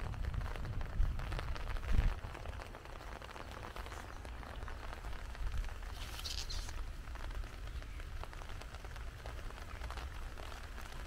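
Heavy rain falling steadily, with many individual drops ticking, over a low rumble. Two louder knocks come about one and two seconds in, and a brief high-pitched sound a little past the middle.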